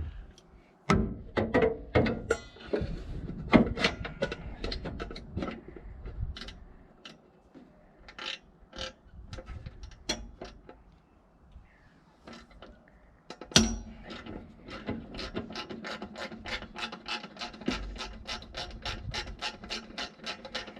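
Hand ratchet wrench working on a bolt: irregular metal clicks and knocks, a sharp knock about halfway, then quick, even ratchet clicks at about four a second.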